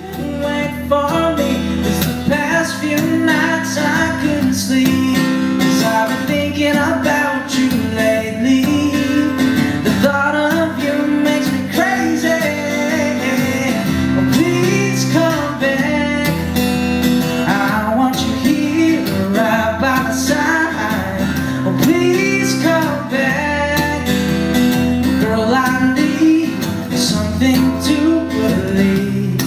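Live pop song: a male voice singing over strummed acoustic guitar.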